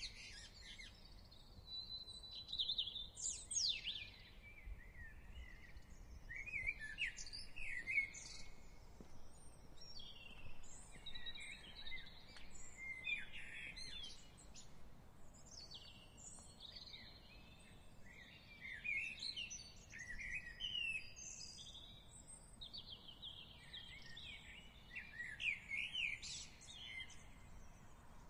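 Garden songbirds singing and chirping, with quick trills and short rising and falling notes overlapping throughout, over a faint low background rumble.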